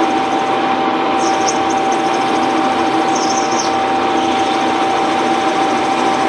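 Axelson engine lathe running with a steady whine while its tool turns a nylon part, throwing off stringy chips. There are two brief high squeals, about a second in and again around three seconds.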